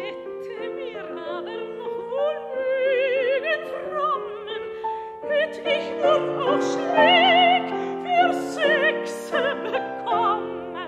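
Classical soprano singing a German art song (Lied) with wide vibrato, accompanied by piano.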